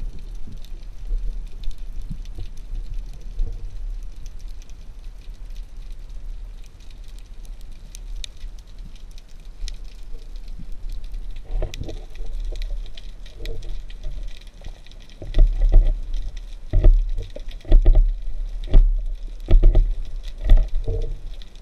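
Underwater noise picked up by a camera on a spearfishing dive: a steady low rumble of moving water with a faint crackle of clicks. In the second half come irregular dull thumps and knocks, several of them loud.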